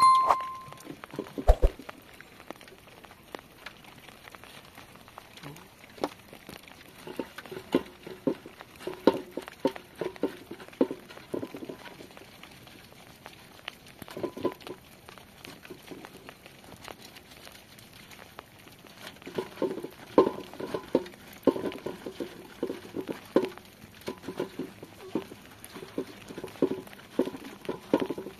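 Hands rubbing and squeezing a wet item in water in a metal basin: irregular bursts of squelching and splashing, with pauses between them.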